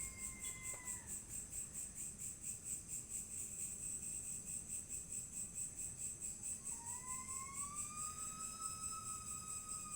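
Insect in the vegetation trilling continuously in a high, evenly pulsing buzz. A long whistling tone fades out about a second in, and another rises in about seven seconds in and holds steady.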